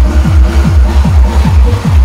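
Phonk remix music: heavy bass with a fast, even run of short falling bass notes, about four a second.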